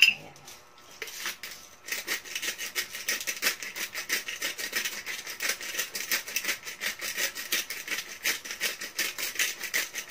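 Sauce bubbling in a pot on the stove: a fast, irregular crackle of small pops that starts about two seconds in.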